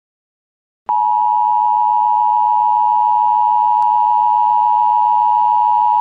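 Emergency Alert System attention tone: a steady, loud electronic tone that starts abruptly about a second in and holds without change.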